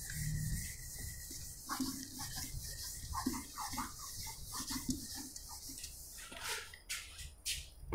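A whiteboard duster rubbing across a whiteboard in a run of faint, short wiping strokes, erasing marker writing.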